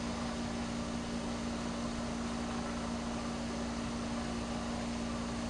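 Steady low hum with an even hiss behind it, unchanging throughout; it cuts in abruptly just before.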